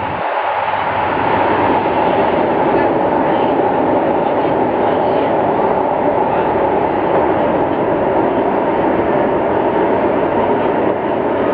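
Electric metro train running at speed, heard from inside the carriage: a steady, loud rumble and rush of wheels on rail, growing louder over the first second or two and then holding even.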